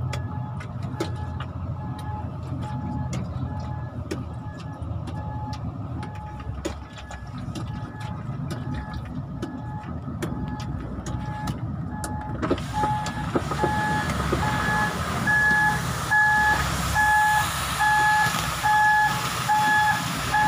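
MAN TGS truck's diesel engine running at low revs while reversing, heard from inside the cab, with its reversing alarm beeping steadily a little under twice a second. The beeps become much louder about twelve seconds in.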